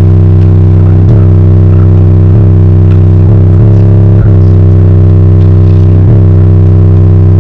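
Bass-heavy music played very loud through a car stereo's single Sundown X18 18-inch subwoofer in a ported box tuned to 30 Hz: a held deep bass note with a regular beat about every half second or so.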